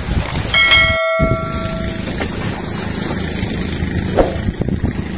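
A bell-like notification chime sound effect: several steady ringing tones sound about half a second in and fade out about a second and a half later. Under it runs a steady low rumble of wind and boat noise.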